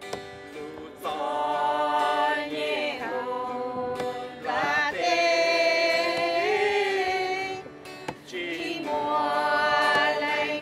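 Voices singing a worship hymn in long held notes, in phrases broken by short pauses about four and eight seconds in.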